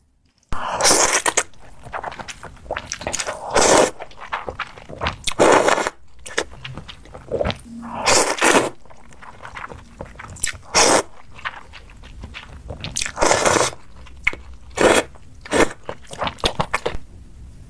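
Close-miked mukbang eating sounds: a run of short, loud, irregular bites and crunches into food, with quieter crackles and scrapes between them, starting about half a second in.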